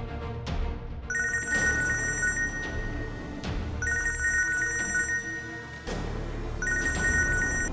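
Mobile phone ringtone for an incoming call, ringing three times: two steady high electronic tones sounding together in bursts of about a second and a half.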